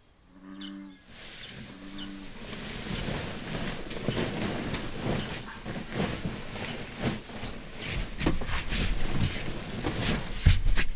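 Sleeping bag rustled and shifted about, with several knocks and a thump near the end. In the first two seconds, two short, low croaks from a bullfrog.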